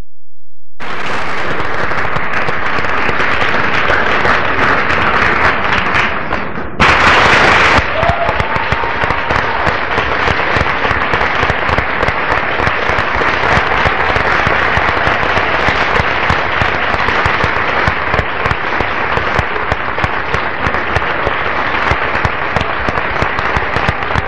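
Large audience applauding, a steady dense clatter of many hands clapping, with a brief louder surge about seven seconds in.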